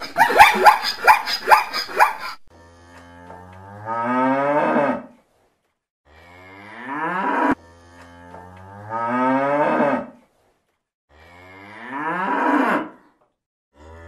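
A rapid run of short, high barking calls from zebras, then from about two and a half seconds in a cow moos four times, long calls that each rise in pitch and break off.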